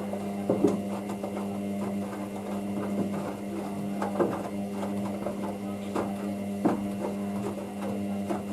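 Hoover DYN9144D3X washing machine running on a wash: a steady motor hum with irregular soft knocks from the tumbling load of towels.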